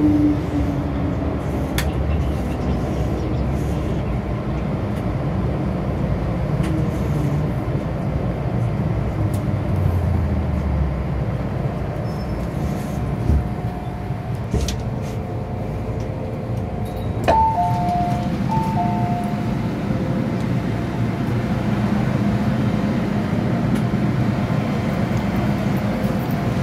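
MTR Island Line M-Train running and slowing into a station, with a steady rumble and a motor whine that falls in pitch. About two-thirds of the way through, a click is followed by the train's two-tone door chime, a high note then a lower one, sounded twice as the doors open.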